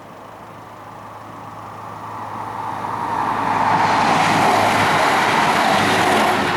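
A vehicle approaching and passing close by: its noise grows steadily louder for about three seconds, stays loud for about three more, then falls away abruptly near the end as it goes past.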